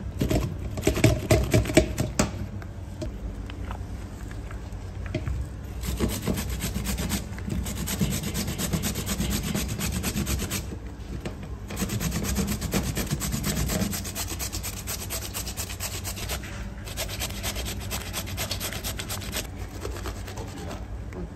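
Rapid, rhythmic rubbing and scraping strokes of hand food preparation against a hard surface, coming in spells of a few seconds with short pauses, over a steady low hum.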